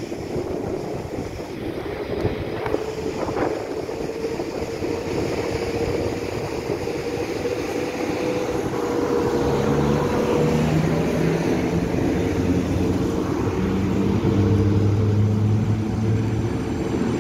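PKP Intercity EP09 electric locomotive starting away with its train of coaches and passing close. A steady whine runs with the rumble of the wheels, and in the second half low tones step up and down in pitch as it gathers power and grows louder.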